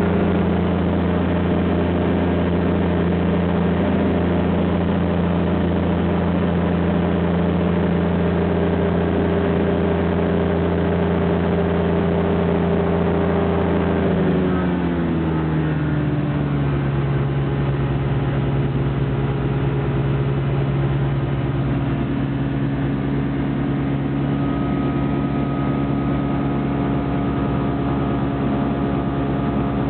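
Light aircraft's piston engine heard from inside the cockpit, running steadily. About fourteen seconds in the engine note drops over a couple of seconds as power is brought back, then runs on steadily at the lower setting.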